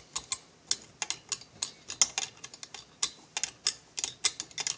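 Hand driver turning down the cylinder screws on an MS440 clone chainsaw kit: rapid, irregular sharp metallic clicking, several clicks a second.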